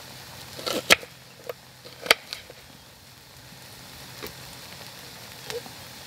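A knife chopping an onion: two sharp chops about one and two seconds in, then a few lighter taps.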